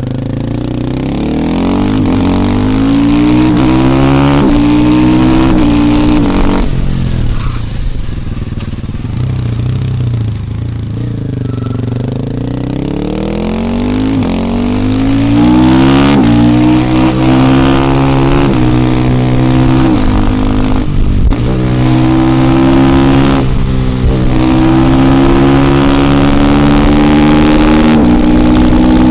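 KTM 450 EXC supermoto's single-cylinder four-stroke engine accelerating up through the gears, its pitch climbing and dropping back at each upshift. About a quarter of the way in the throttle closes and the revs fall and rise again, then it pulls through several more upshifts and holds fairly steady revs near the end.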